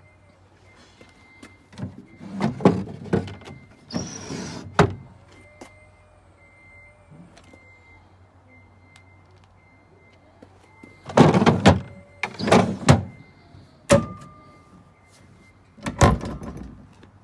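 Wooden drawers of a James Mont style server being slid out and pushed back in, wood scraping in its runners, in several short bursts with a sharp knock about two thirds of the way through as a drawer or door bumps shut.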